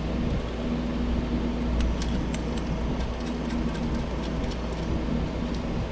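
Scattered light clicks and taps from hand tools fastening a small 7mm screw on plastic under-hood parts, over a steady low background hum.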